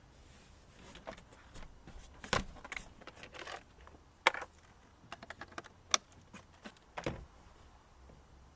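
A handful of sharp clicks and knocks with lighter rattling between them, spaced a second or two apart, from hands working on the stripped car door.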